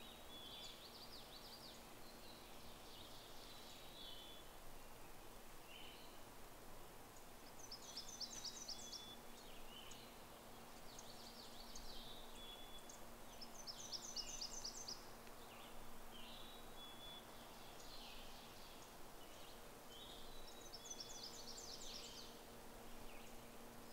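Songbirds singing: short, quick song phrases with clear whistled notes, repeated every two to three seconds, over a faint steady low hum.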